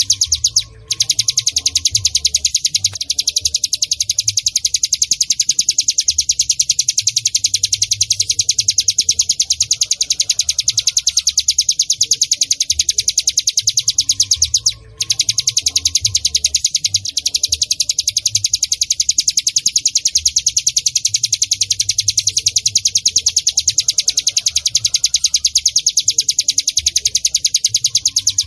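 Ciblek gunung (cigun), a prinia, singing a rapid, unbroken run of high, sharp chirps. The song stops briefly about a second in and again about halfway through.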